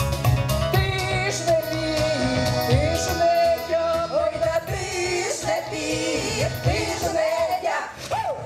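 Women's vocal group singing a Ukrainian folk song through microphones over an instrumental backing with a steady beat; the voices come in about a second in.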